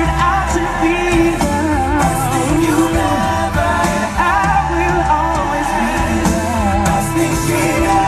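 Male vocal group singing together over an instrumental backing with a steady bass line.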